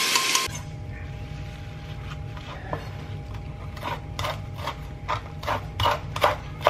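Blended guajillo chile sauce sizzling in hot oil, a loud hiss that cuts off abruptly about half a second in. Then a low steady hum with light knocks and taps, coming more often near the end.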